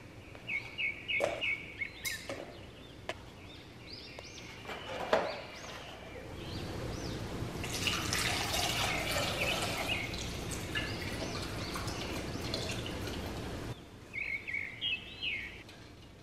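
Eggs knocking against a stainless steel pot as they are set in, then water poured from a glass jug into the pot for several seconds. The pouring cuts off abruptly a few seconds before the end.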